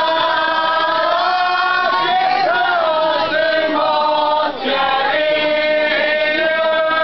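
Group of women singing a traditional Arbëreshë vallja song together in long, held notes that glide slowly between pitches, with a short break about four and a half seconds in.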